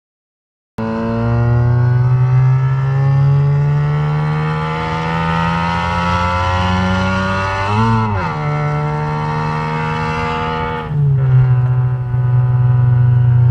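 Ford Fiesta Mk6 with a straight-pipe exhaust accelerating hard, heard from inside the cabin. The engine pitch climbs steadily, dips sharply and recovers about eight seconds in at a quick gear change, then drops near eleven seconds and holds a steadier, lower note.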